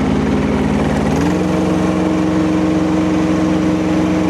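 Kubota diesel engine of a mini skid steer running steadily. About a second in, its speed steps up to a higher, steady pitch as the throttle is raised.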